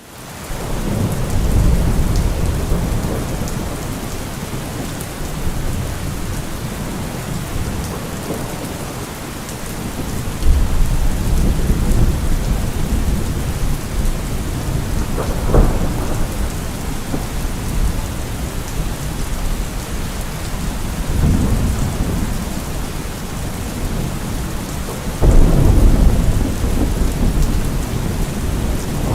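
Thunderstorm: steady heavy rain with rolling thunder. The thunder swells up several times, loudest with a sudden low rumble about a third of the way in and again near the end, with a sharper crack about halfway through.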